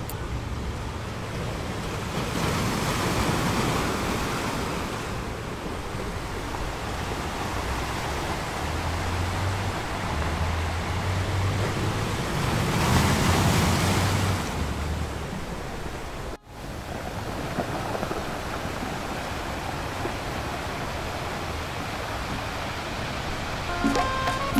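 Small waves washing onto the beach, a steady wash that swells louder twice, with wind rumbling on the microphone.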